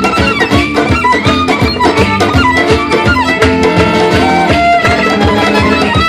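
Live band playing Romanian gypsy-style music: a violin leads a busy melody over guitar and a hand drum keeping a steady beat.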